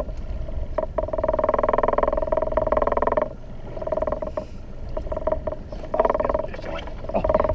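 Loud vibrating buzz on the boat, a steady hum that cuts out about three seconds in and comes back in shorter stretches.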